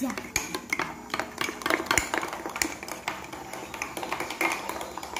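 Plastic spoons stirring thick chocolate mug-cake batter in two ceramic mugs: quick, irregular clicks and scrapes of the spoons against the mug walls.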